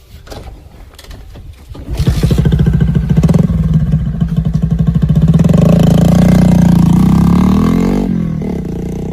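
Modified Bajaj Discover single-cylinder motorcycle engine, faint at first, then loud with a fast-pulsing exhaust from about two seconds in; the note climbs in pitch as it is revved and drops away near the end.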